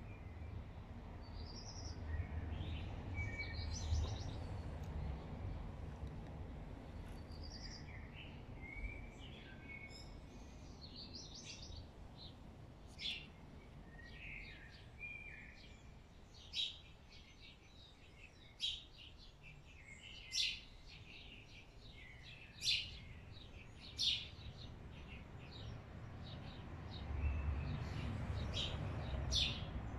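Small songbirds singing in the early morning. In the first half there are varied warbled phrases, and later one bird repeats a short, sharp note every second or two, over a low background rumble.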